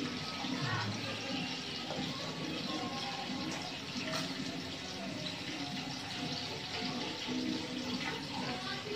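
Coconut milk simmering in a wide pan: a steady bubbling hiss, with a few soft plops as cut long beans are dropped in.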